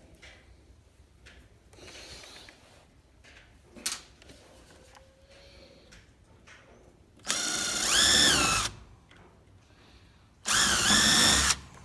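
Power drill run in two bursts of a second or so each, the second near the end, its motor whine rising and falling in pitch with the trigger, most likely driving screws into the coop's wood. Faint clicks and knocks of handling come before them.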